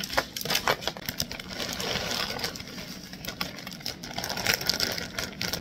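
Frozen riced cauliflower pouring out of a plastic bag into an aluminium foil pan and being spread by hand: a steady run of small clicks and crinkles from the frozen bits, the bag and the foil.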